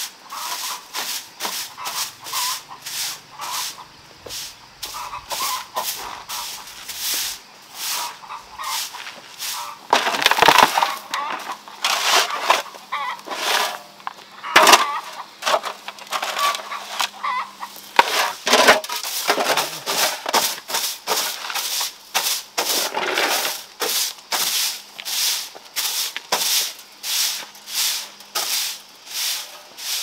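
Stiff straw broom sweeping wood shavings across a gritty concrete and gravel floor in quick, regular strokes, about two or three a second. Chickens cluck in the background.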